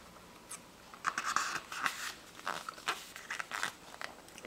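A book page being turned by hand: a string of crisp paper rustles and flicks.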